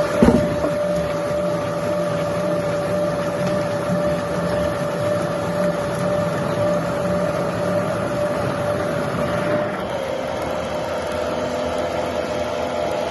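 Sawmill machinery running steadily: a constant whine over a rough hum, the pitch dropping slightly about ten seconds in.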